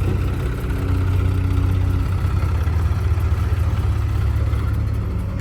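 Heavy diesel engine running steadily at a constant speed, with a thin steady whine over it that stops about two seconds in.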